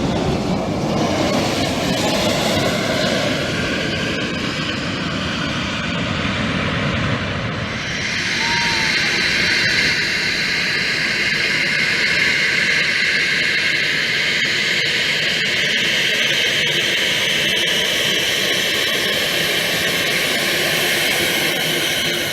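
Boeing 737-800's CFM56-7B turbofan jet engines running loud and steady. About a third of the way in the sound shifts from a low rumble to a strong high-pitched whine and hiss.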